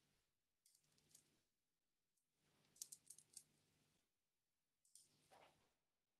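Near silence with a few faint computer keyboard and mouse clicks: a quick run of four or five about halfway through and a couple more near the end.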